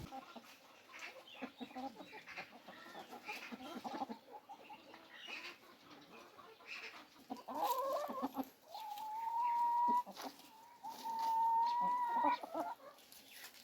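Domestic chickens clucking with short, scattered calls, then, about halfway through, a rooster crowing: a bending opening followed by two long, level held notes.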